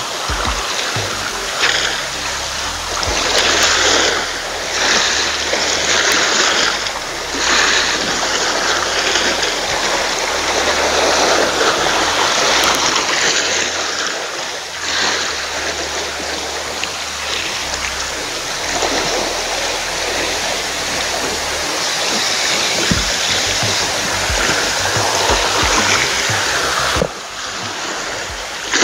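Small sea waves washing and splashing against a rocky shore, swelling and easing every second or two; the sound drops away suddenly near the end.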